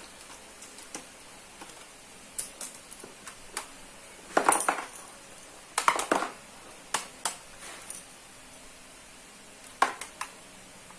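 Hard plastic casing of a surge protector strip and a screwdriver being handled on a hard floor: scattered clicks and clatters, loudest a little over four seconds in and again about six seconds in, with a sharp knock near ten seconds.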